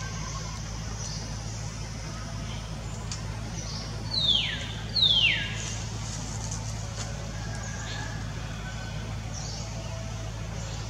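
Infant long-tailed macaque giving two loud, high squeals about a second apart, each falling steeply in pitch.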